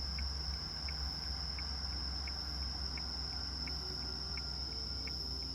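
Autumn crickets singing: a steady high-pitched trill with a shorter, lower chirp repeating about every two-thirds of a second, over a steady low hum.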